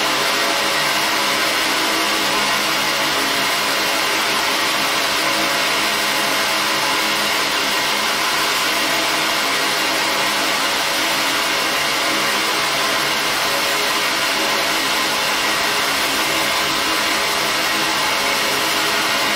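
Steady airy blower hum of a fiber laser engraving setup running, with faint steady tones mixed into the noise and no change in level.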